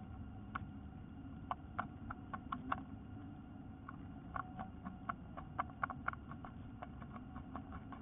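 Quick, irregular ticks and scratches of a bluebird shifting and picking about in its dry-grass nest over the eggs, coming in clusters with short pauses, over a steady low hum.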